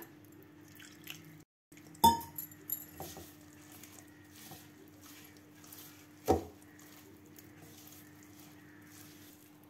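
Hand mixing a thick flour-and-batter dough in a stainless steel bowl: faint mixing sounds, with a sharp clink against the bowl about two seconds in and another past six seconds, over a steady hum.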